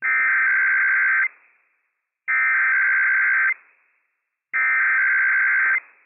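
Emergency Alert System SAME header: three identical bursts of buzzy digital data tones, each a little over a second long and about a second apart, broadcast over NOAA Weather Radio to open a Required Weekly Test.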